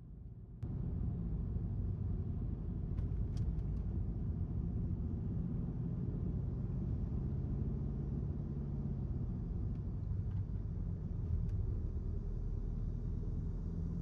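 Car driving along, its engine and tyre noise a steady low rumble that gets louder suddenly about half a second in, with a few faint ticks.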